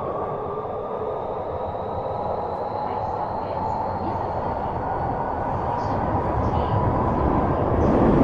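Kyoto Municipal Subway 50 series train running, heard from on board: a steady motor whine that slowly climbs in pitch over rail and wheel rumble, which grows louder toward the end.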